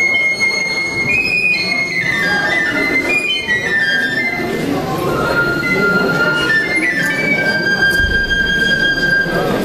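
A high, flute-like wind instrument plays a folk melody in long held notes over the murmur of a crowded hall.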